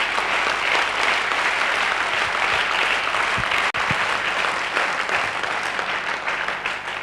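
A large seated audience applauding in a hall, steady clapping that tapers off near the end.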